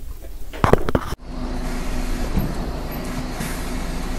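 A few quick knocks, then a sudden cut to the steady running noise of a motor vehicle engine, with a faint low steady tone.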